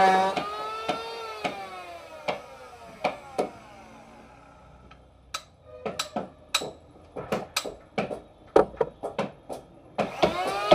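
An electric power tool's motor winding down, its whine falling in pitch over the first few seconds, then a run of sharp, irregular knocks on wood, and the motor starting up again near the end.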